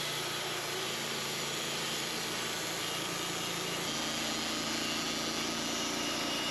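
Portable bandsaw sawmill running steadily under its engine, a dense even noise over a low hum, with a slight shift in the hum about four seconds in.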